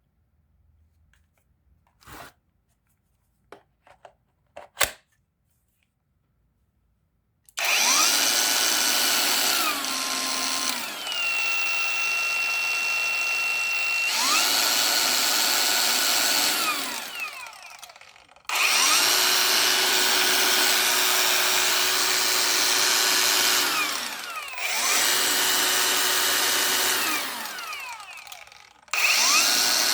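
A few clicks of a cordless tool being handled, then a cordless brushless power tool's motor running in four stretches, each with a whine that rises as it spins up and falls as it stops. In the first stretch the pitch drops and holds lower for a few seconds before coming back up.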